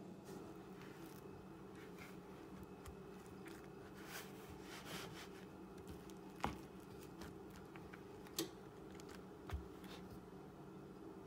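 Quiet kitchen handling sounds as a fork works margarine and eggs into flour in a ceramic mixing bowl, with a few sharp clicks of the metal fork against the bowl, once about halfway through and twice more later. A faint steady hum runs underneath.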